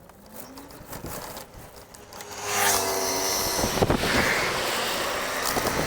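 Wind rushing over the microphone, setting in suddenly about two and a half seconds in and staying loud; before that, a faint rising whine.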